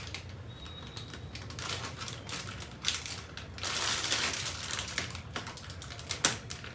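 A chips packet crinkling as it is handled, with sharp clicks of plastic bag-sealing clips being snapped onto it. The crinkling comes in short bursts, heaviest about halfway through, and a single loud click comes near the end.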